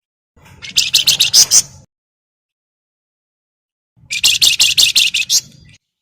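Javan fulvetta (wergan Jawa, 'flamboyan') giving its rapid chattering call: two bursts of quick, evenly repeated high notes, each lasting about a second and a half, with a pause between them.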